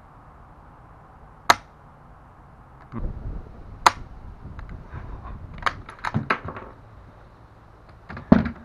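Mosin-Nagant rifle's action clicking with no shot: two sharp dry snaps a couple of seconds apart, then a quick run of metallic bolt clicks and a last snap near the end, as an armor-piercing-incendiary cartridge fails to fire.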